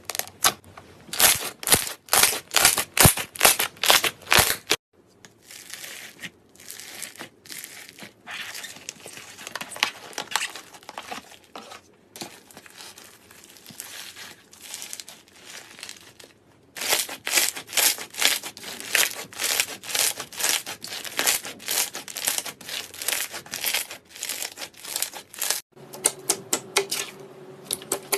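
Hands squeezing and pressing slime, making rapid runs of sticky clicking and crackling pops. The pops are loud at first, softer for a stretch in the middle, and loud again later.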